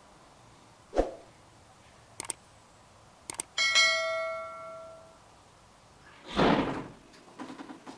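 Subscribe-button animation sound effects: a short thump about a second in, two quick mouse double-clicks, then a notification-bell ding that rings out for about a second and a half, and a whoosh near the end.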